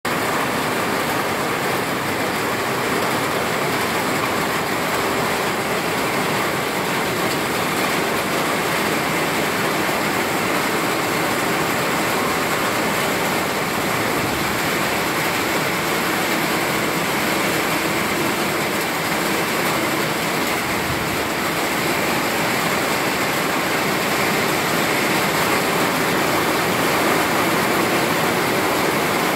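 Heavy summer rain falling steadily on trees, foliage and ground: a dense, even hiss that holds the same level throughout and swells a little near the end.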